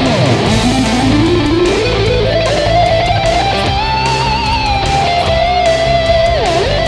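Electric guitar lead improvising over a backing track. At the start the note dives sharply with the tremolo bar and climbs slowly back up over a couple of seconds. A long note is then held with vibrato and dipped once with the bar near the end.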